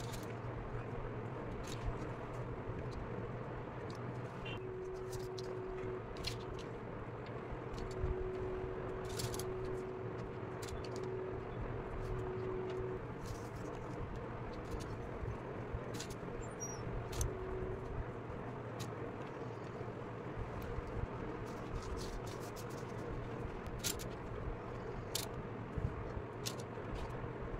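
Scattered light clicks and taps of wooden ice cream sticks being laid down and pressed together while glued, over a steady low background hum.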